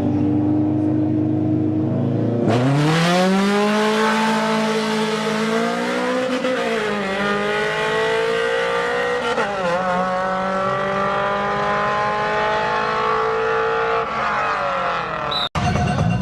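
Drag race car launching and accelerating hard: the engine holds a steady note, then revs sharply upward, dropping in pitch at two gear changes before climbing again and fading away.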